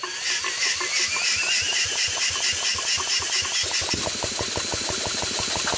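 Grail two-stroke prototype engine being turned over by a DeWalt drill on a cold spin, not firing: a rapid, even pulsing as it pumps air through, with the drill motor's whine over it. The pulses grow heavier about four seconds in.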